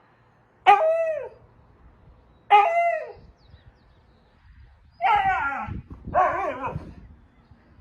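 A dog giving four short, pitched barks, each one falling in pitch; the last two come close together in the second half.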